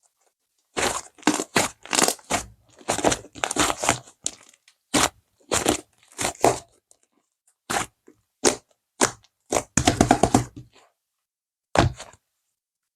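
Bead-topped whipped-cream slime being squeezed and pressed by hand, giving short bursts of crackling and crunching from the beads with brief pauses between, starting about a second in.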